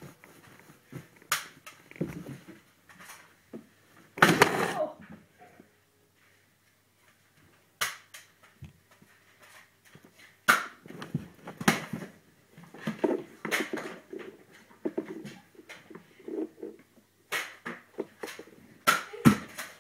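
Irregular knocks, clicks and rustling, with a near-silent gap in the middle; the loudest is a burst about four seconds in.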